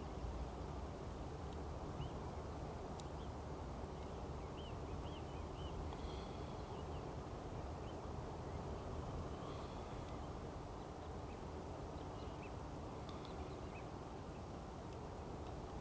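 Small birds chirping faintly, a few short calls in little runs, over a steady low rumble with a faint steady hum.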